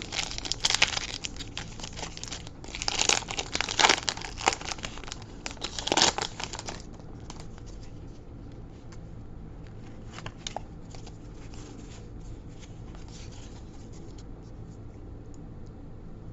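Foil wrapper of a Pokémon booster pack crinkling and tearing open, in dense bursts of sharp crackling over the first seven seconds or so, loudest near the end of that stretch. After that only a few faint clicks.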